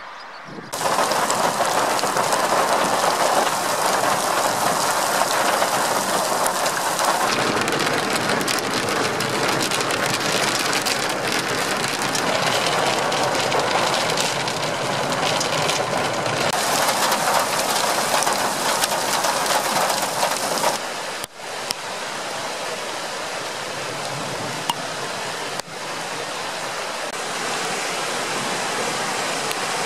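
Heavy thunderstorm downpour hissing steadily, starting abruptly about a second in. About two-thirds of the way through it gives way to the steady rush of a flood-swollen river churning over rocks.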